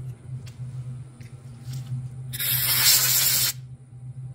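Compressed-air blow gun hissing in one blast of about a second, clearing swarf off a freshly milled part in the milling machine's vise, over a steady low hum of the machine.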